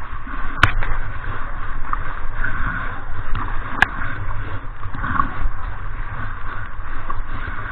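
Shallow river water rushing and splashing right at a camera held at the surface, with two sharp knocks about three seconds apart.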